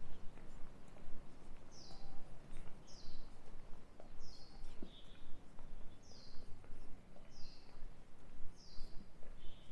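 A bird calling over and over, a short high chirp that falls in pitch, repeated roughly once a second, over a steady low background rumble.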